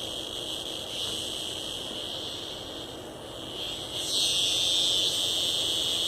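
A captured cicada's distress buzz: a harsh, high-pitched, steady drone that weakens a little about three seconds in, then jumps sharply louder about four seconds in and holds.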